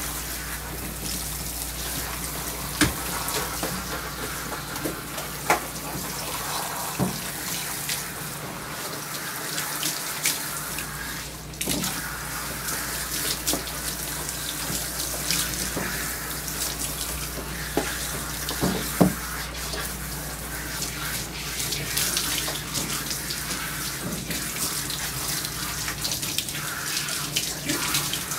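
Water spraying steadily from a hand-held bathing sprayer onto a wet German Shepherd's coat in a grooming tub, with a few sharp knocks now and then.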